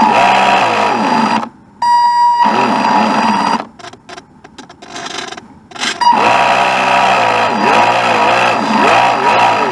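RC boat's motor running with a buzzing whine, its pitch swelling up and down over and over. It cuts out briefly about a second and a half in, drops away again for about two seconds from about three and a half seconds in, then comes back.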